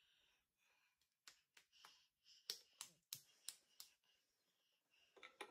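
A toddler clapping hands: a quick run of about eight light, faint claps.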